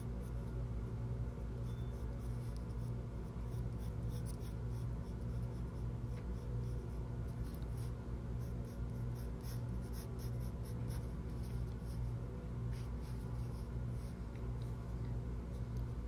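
Wooden pencil scratching on paper in short, repeated strokes as lines are laid in, over a steady low hum.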